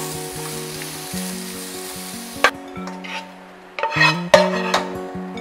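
Julienned carrots sizzling in a frying pan. About halfway through a click cuts the sizzle off, and near the end a couple of sharp clinks come as the pan is tipped and the carrots slide out onto a plate.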